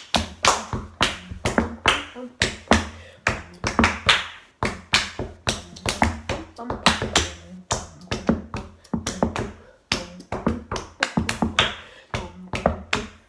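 Hands tapping on a table top, with claps, beating out a rhythm of several sharp strokes a second.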